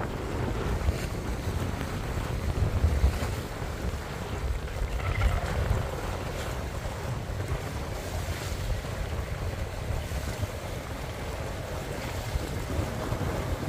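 Wind buffeting the microphone with a heavy, uneven rumble, over choppy harbour water lapping and splashing against the rocks of a stone breakwater.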